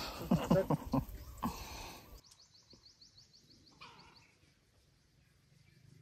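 A puppy gives short pitched whining yelps for about two seconds. Then comes a rapid run of faint high chirps, about eight a second, with one short call near the end of it.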